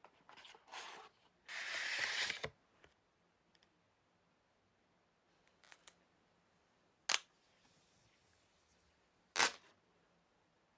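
Unboxing handling noise from a smartphone's cardboard box and the phone: a rustle, then a brief rubbing hiss about two seconds in as the fitted lid and tray slide apart. Later come a small click and two sharp clicks from the phone being handled.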